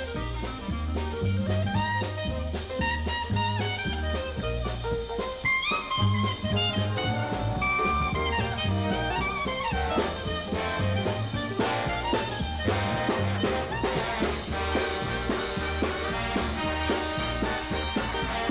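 Swing jazz band playing live: a clarinet solo over a stepping bass line and drums, with the trumpets and trombone playing near the end.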